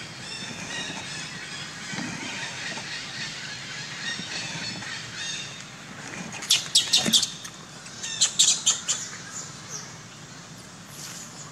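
Dry leaf litter crackling and rustling in two short bursts as a macaque moves over it, about six and eight seconds in. Faint birds chirp in the background throughout.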